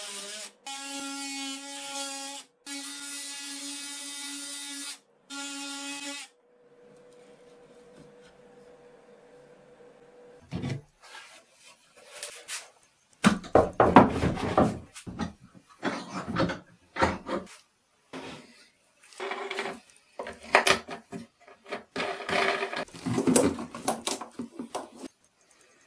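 Cordless drill-driver motor whining in three bursts of a few seconds each, working the screws of the hold-down blocks on a CNC bed. A faint hum follows, then irregular knocks, clatter and rubbing as wood and tools are handled.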